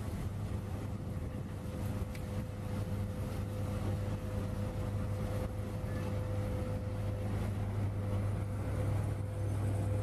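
Aggregate belt conveyor at an asphalt plant running: a steady low hum with a faint steady whine, over an even hiss of sand and gravel spilling off the belt.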